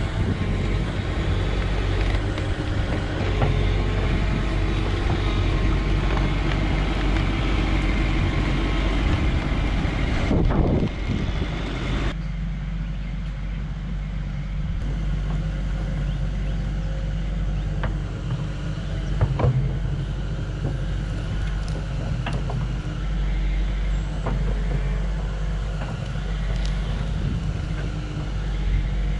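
Hydraulic excavator diesel engines running steadily, with occasional short clanks. About twelve seconds in, the sound drops abruptly to a quieter, lower engine drone.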